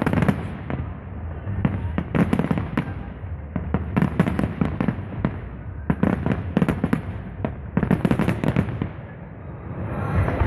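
Fireworks display: aerial shells bursting in dense clusters of sharp bangs and pops, a new cluster every second or two, easing off briefly near the end.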